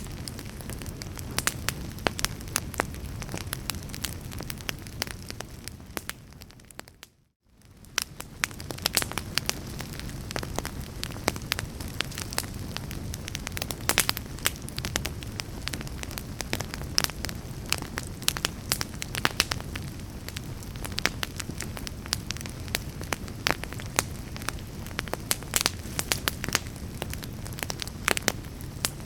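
Wood fire burning, with a steady low rush and frequent sharp crackles and pops of burning wood. The sound fades out to near silence about seven seconds in and comes back a second later.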